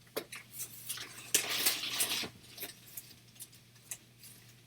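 Hard plastic CGC graded-comic slabs being handled: sharp clicks and clacks as the cases knock together, with a louder stretch of sliding and scraping about a second and a half in.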